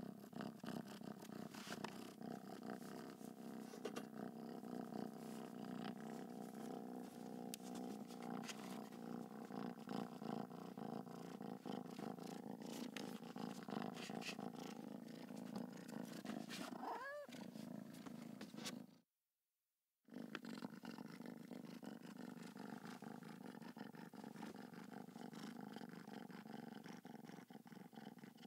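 Domestic cat purring steadily and quietly, with one short meow about two-thirds of the way through. The purring stops for about a second right after the meow, then resumes.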